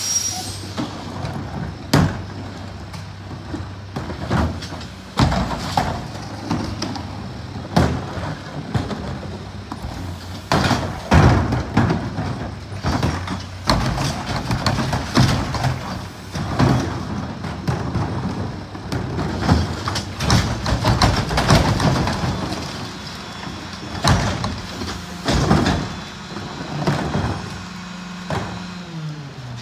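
A Mack MRU garbage truck's diesel engine idles steadily behind a McNeilus rear loader. Over it come many loud bangs and thuds as plastic trash carts are knocked against the hopper edge and emptied by hand, and their lids slap shut.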